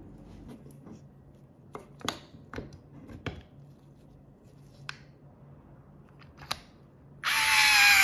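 Light clicks and taps of small parts being handled at a workbench, then near the end about a second of loud whirring noise.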